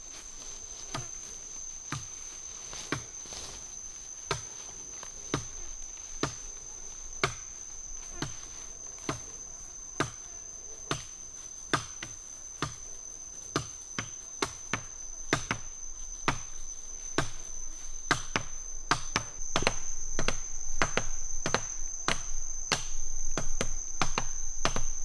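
Regular chopping strikes into wood, about one a second, coming quicker and louder in the last few seconds, over a steady high-pitched insect drone.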